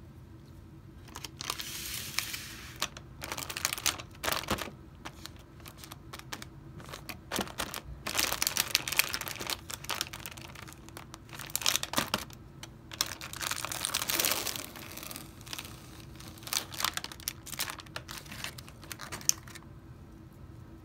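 Crinkly plastic wrapper of a cookie package rustling and crackling in irregular bursts as it is handled and peeled open.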